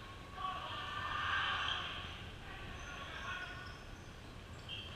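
Indistinct murmur of spectators and players' voices echoing in a school gymnasium, swelling a little about half a second in and easing off after about two seconds.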